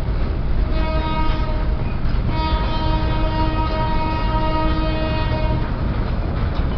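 A long freight train of empty grain hopper cars rolls past with a steady low rumble. A locomotive horn sounds in long blasts with two short breaks and stops about five and a half seconds in.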